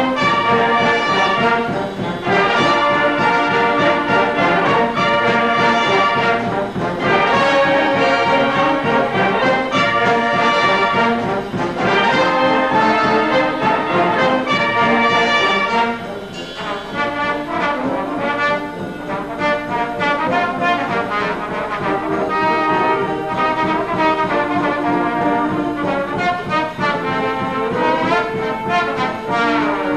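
Brass band music with sustained chords, softening a little about halfway through.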